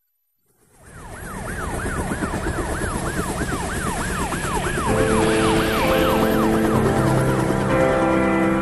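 Intro of a pop song fading in with a siren-like wailing effect that sweeps up and down about three times a second. Held synth and keyboard tones join it about five seconds in.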